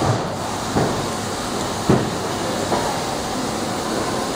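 Steady rushing background noise of a factory floor, with a few short knocks.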